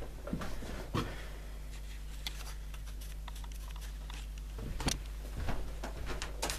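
A few scattered light clicks and knocks of hand work on the upturned mower's plastic deck as a clogged screw head is picked at, over a steady low hum.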